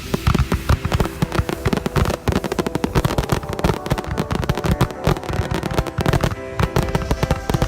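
A fireworks fountain crackling and spraying, with music playing over it.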